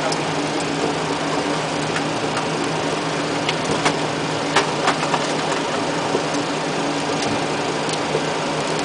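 Boeing 737 flight deck noise with the engines running: a steady hum and hiss with a low steady tone under it. A few sharp clicks come around the middle.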